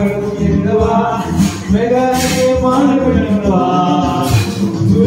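A man singing karaoke into a handheld microphone, drawn-out sung notes over an amplified backing track.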